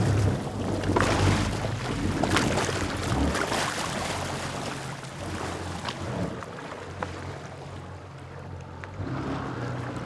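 Jet ski engine running with water hissing and splashing around the hull. The engine is loudest at first, fades over several seconds as the craft moves off, and grows louder again near the end.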